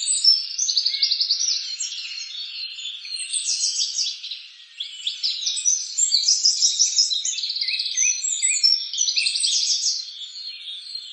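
Several songbirds singing at once: a dense, continuous chorus of overlapping rapid trills and chirps, all high-pitched, with a brief lull a little before the middle.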